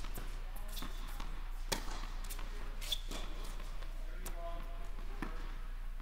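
Tennis rally on an indoor court: racket strikes and ball bounces as sharp knocks about a second apart, the loudest a little under two seconds in.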